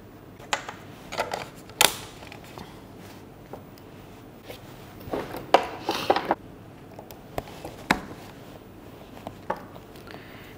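Hard plastic clicks and knocks of ClicBot robot modules being handled and fitted together, with a denser clatter about five to six seconds in as parts are picked out of their box.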